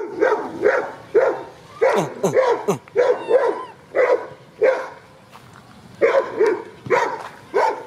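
A dog barking over and over, about two barks a second, with a short pause about halfway through.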